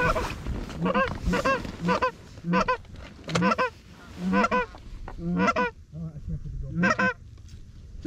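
Canada geese honking, about nine loud two-note honks at uneven intervals, each breaking from a low note up to a higher one.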